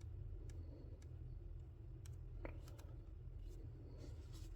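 Faint, scattered clicks at a computer, about eight over a few seconds, over a low steady hum.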